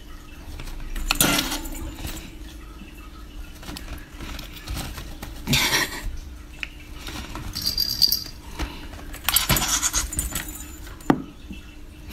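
A budgie's cage toys rattling and jangling in three short bursts, with a brief high note in between and a sharp click near the end.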